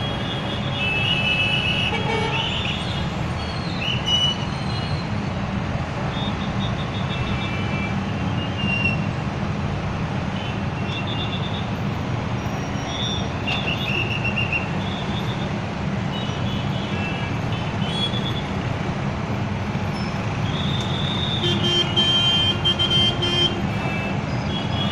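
Steady low rumble of a diesel excavator and truck engines running, with short high-pitched toots and squeaks scattered over it, busier near the end.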